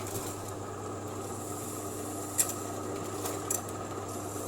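Tempe slicing machine running with a steady motor hum, with a few sharp clicks about two and a half seconds and three and a half seconds in.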